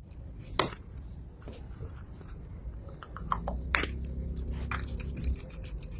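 Hands handling small hard objects: a few sharp clicks and knocks, then from about two-thirds of the way in a fast run of small clicks like scraping or snipping.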